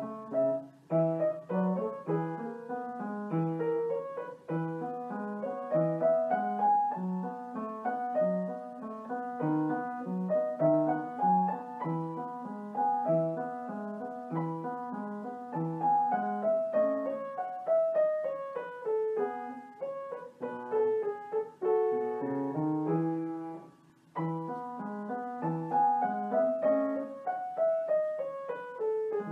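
Background piano music: a flowing keyboard melody over a steady accompaniment, with a brief pause about 24 seconds in.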